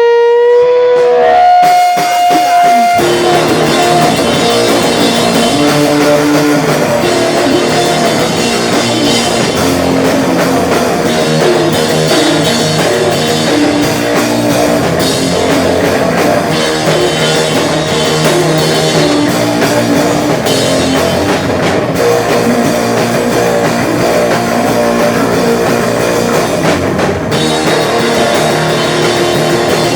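Live rock band playing loud: a lone guitar holds a couple of notes, then drums, bass and guitars come in together about three seconds in and carry on at full volume.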